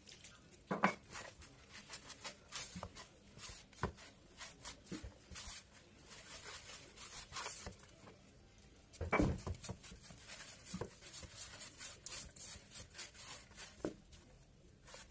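Hand kneading flour and hot water into pizza dough in a large steel bowl: a soft, uneven rubbing of dough with a few light knocks against the metal.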